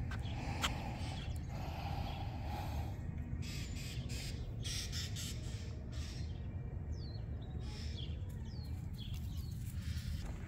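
Crows cawing, a few harsh calls in the first three seconds, then a smaller bird giving several short falling chirps about seven to eight seconds in, over a steady low rumble.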